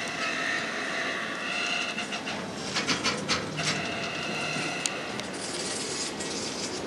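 Covered bogie hopper wagons of a freight train rolling past at close range, their wheels clacking over rail joints. Twice the wheels give a high steady squeal lasting about a second.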